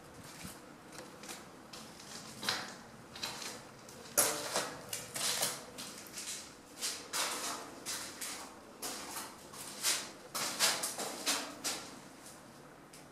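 Footsteps scuffing and crunching on the concrete floor of a concrete bunker, about two steps a second, louder through the middle and fading near the end.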